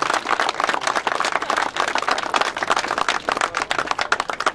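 Small crowd of people applauding with dense, continuous hand claps.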